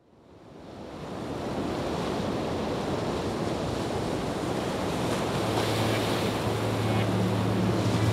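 Steady rushing noise of wind and harbour water, fading up from silence over the first second or so. A low steady hum joins in the second half.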